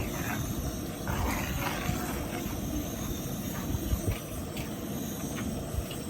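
Wind buffeting the microphone, an uneven low rumble over a steady hiss.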